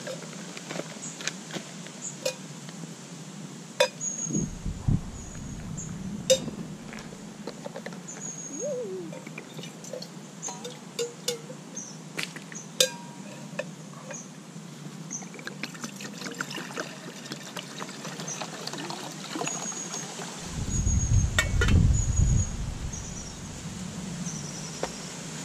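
Stainless-steel camping mugs and a small pot clinking and knocking as they are handled, with water poured out of the pot. Two spells of low rumble, the second near the end and the loudest part.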